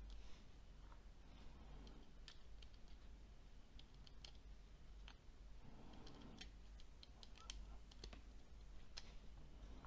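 Faint, irregular small clicks and taps of a smartphone's small plastic parts being handled and fitted together during reassembly.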